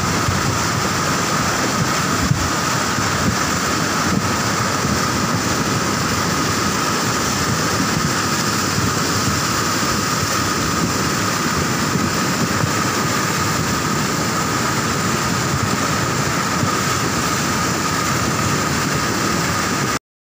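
Rain-swollen river in flash flood, its muddy torrent rushing and churning in a steady, loud wash of water noise. The sound cuts off suddenly just before the end.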